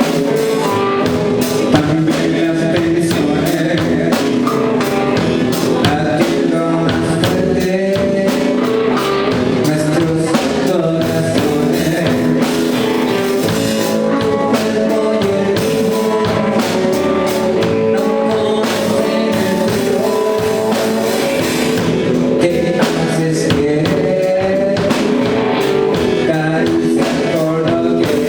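A blues song played by a band, with a drum kit keeping a steady beat under guitar.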